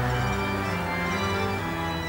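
Church organ playing held chords that change every second or so.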